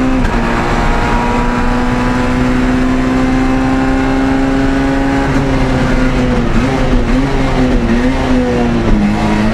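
Citroën Saxo A6 rally car's 1.6-litre four-cylinder engine heard from inside the cockpit, running at steady high revs down a straight with road and wind noise underneath. The pitch wavers slightly from about halfway and starts to drop just before the end.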